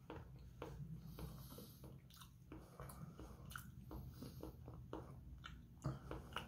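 Close-miked chewing of sushi: soft, irregular wet mouth smacks and clicks.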